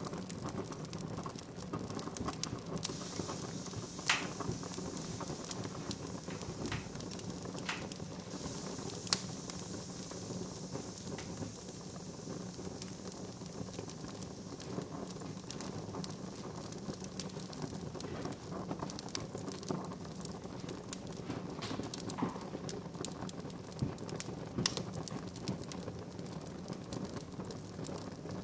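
Fire crackling in a glass-fronted stove: scattered pops and clicks over a steady low hum.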